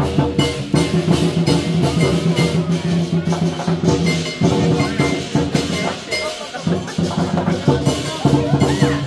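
Lion dance percussion: a big drum beaten in a steady, driving rhythm with clashing cymbals and gong. The sharp hits ring on under the beat, easing briefly about two-thirds of the way through.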